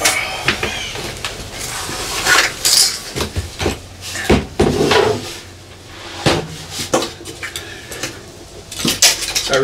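Irregular clanks, knocks and scrapes of a Victron Quattro inverter's metal case being handled and turned over, its cables rattling against it.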